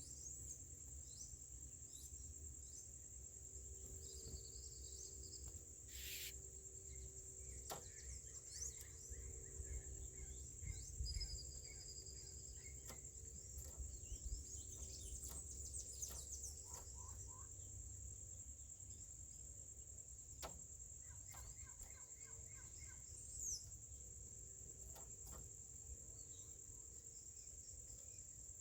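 Steady high-pitched insect drone, like a cricket's, with scattered short bird chirps and calls over a faint low rumble.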